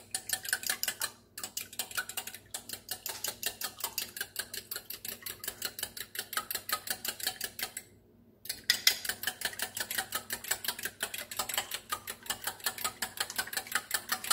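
Eggs being beaten by hand with a metal utensil in a ceramic bowl: quick, even clicks of metal against the bowl, about six a second. The clicking stops briefly a little after a second in and for about half a second around eight seconds in.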